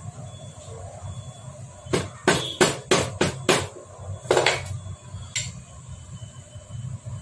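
Hammer tapping on a Hero Splendor Plus motorcycle engine during assembly: six quick, sharp metal knocks about a third of a second apart, then a longer rattling blow.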